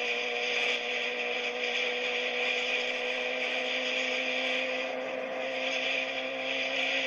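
Motorcycle engine running steadily at highway cruising speed, a constant whine, with wind rushing over the camera's microphone.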